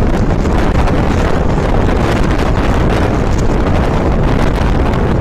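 Strong sandstorm wind blowing hard and buffeting the microphone: a loud, steady rush.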